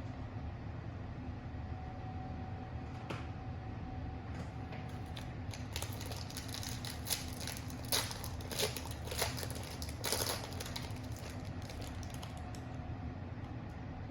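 Trading cards being handled by hand, giving a run of crisp clicks and short scrapes through the middle, over a steady low hum.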